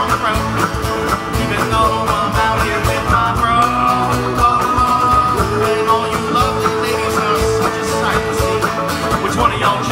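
Live band playing a song: a male lead vocal over strummed electric guitar, acoustic guitar and bass guitar, one note held long about halfway through.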